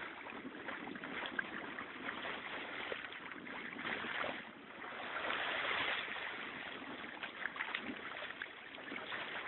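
Steady wash of moving water, with a few faint scattered clicks and no clear tones.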